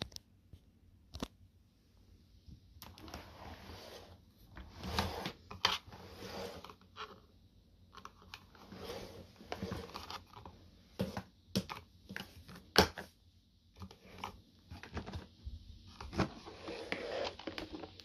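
Irregular plastic clicks, knocks and scraping from an FCM Soteco commercial vacuum cleaner being handled by hand, its latches worked and its motor head lifted off the drum, with one sharper snap about two-thirds of the way through.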